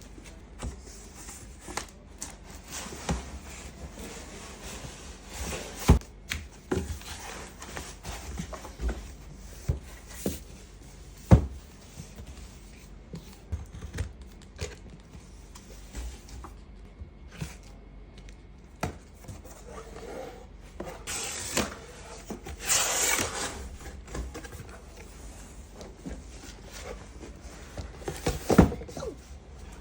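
A cardboard parcel being handled and opened by hand: scattered taps and knocks, rubbing and scraping of cardboard and packing, with a louder stretch of rustling and tearing about two thirds of the way through.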